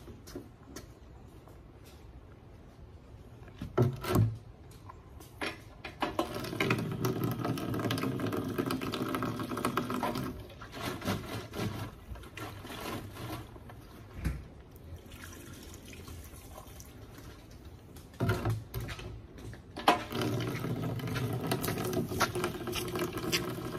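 Water from a park drinking fountain's spigot running into a plastic water jug, in two spells of filling: one from about six to ten seconds in and one starting about twenty seconds in. A few knocks from handling the jug fall between them.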